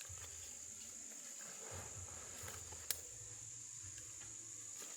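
Insects chirring in a steady high-pitched drone, with one sharp click about three seconds in.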